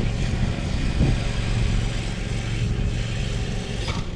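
A car driving slowly, with the steady low rumble of its engine and tyres on the road.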